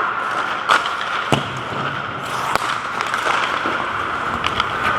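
Hockey rink drill sounds: a few sharp cracks of sticks and pucks on the ice and boards over a steady hum.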